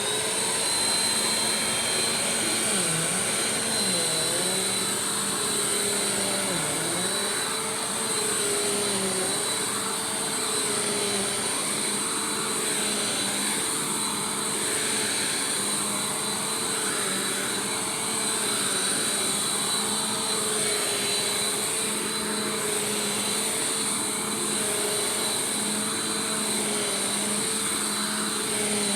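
Bissell PowerForce Compact Turbo upright vacuum cleaner running with a steady whine, its pitch dipping briefly a few times in the first several seconds.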